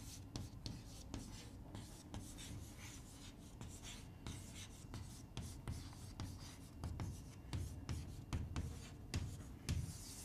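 Chalk writing on a chalkboard: a faint, quick run of short scratches and taps as a phrase is written out stroke by stroke.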